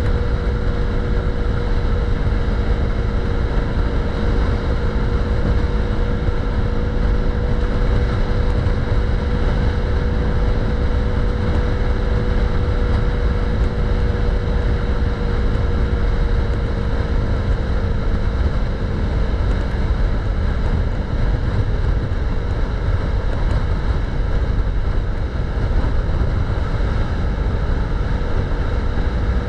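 KTM 390's single-cylinder engine running at a steady cruising speed, under heavy wind rumble on the microphone. The engine note holds steady, then drops slightly in pitch about halfway through.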